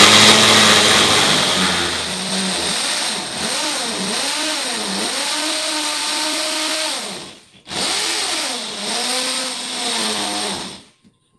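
Corded electric drill boring into a wall, its motor pitch wavering up and down as the bit bites. It runs for about seven seconds, stops briefly, then runs again for about three seconds and stops near the end.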